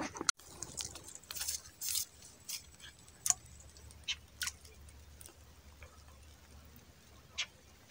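Sparse light raindrops ticking at irregular intervals, about a dozen small taps, over a faint steady low hum.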